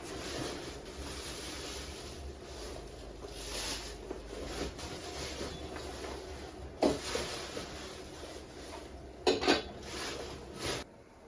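Sharp knocks and clatters of objects being handled, one about two-thirds in and a quick cluster near the end, over a steady hiss.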